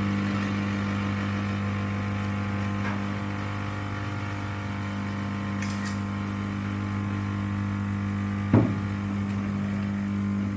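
Klarstein Passionata Rossa 20 espresso machine's vibratory pump humming steadily as it pushes espresso out through both spouts into the cup. A single sharp knock comes about eight and a half seconds in, and the hum stops abruptly at the end as the machine is switched off.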